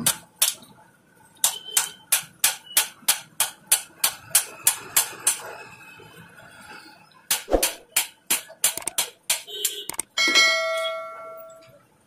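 Rapid light hammer taps on a steel punch, driving a rivet out of a Samsung washing-machine spin motor's casing. A run of about a dozen taps, a pause, then a second run, ending about ten seconds in with a single metallic clang that keeps ringing for over a second.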